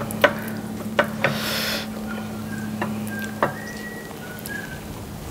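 Eating by hand: sharp lip smacks and clicks, with fingers working rice on a plate, a few times over a steady low hum. A few short, thin whistle-like tones come in around the middle.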